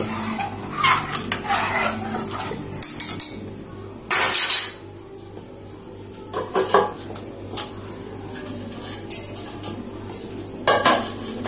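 Steel ladle stirring rice in coconut milk inside a pressure cooker pot, clinking and scraping against the metal: a run of clinks in the first three seconds, a louder half-second clatter about four seconds in, then a few scattered clinks.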